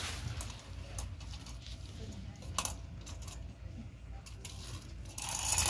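Small wheeled plastic toy turtle clicking against a tiled floor as it is handled and set going, over a low steady hum. There is a denser, louder rattle near the end.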